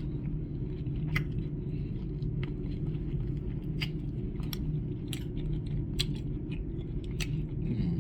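A person chewing barbecue ribs with wet mouth clicks and lip smacks at irregular intervals, over a steady low hum.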